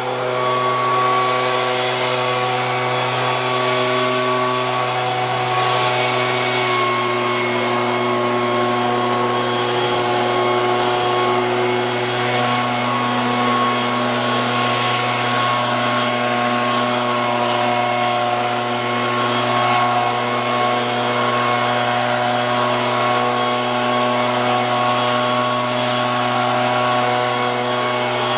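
Handheld leaf blower running steadily, blasting loose snow off a car.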